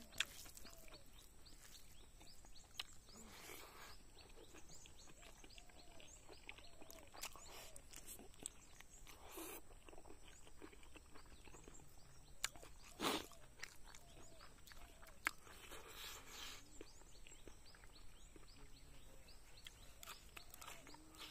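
Faint close-up eating sounds: chewing and lip smacking as handfuls of rice and smoked pork are eaten by hand, with many small clicks and a few sharper ones, the loudest about 13 seconds in.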